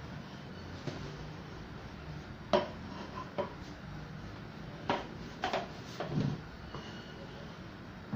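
Wooden spatula knocking against the side of a large metal cooking pot while turning a pot of cooked tomato rice: about six sharp knocks at uneven intervals, with soft scraping between them.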